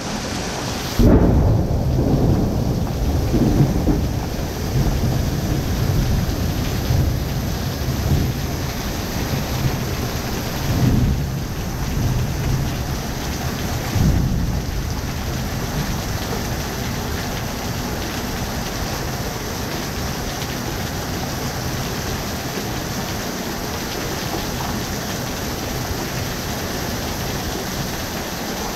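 Thunderstorm: heavy rain pouring steadily onto a concrete porch and yard, with a loud clap of thunder about a second in and two more rolls of thunder near the middle, then steady downpour.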